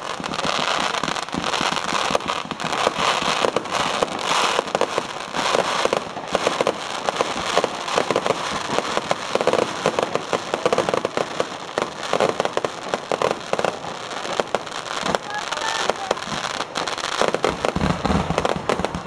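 Fireworks going off in a dense, continuous run of crackles and pops, with a murmur of voices underneath.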